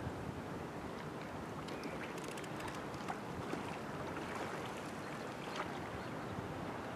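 Steady outdoor noise of water and breeze, with scattered light clicks and ticks through the middle.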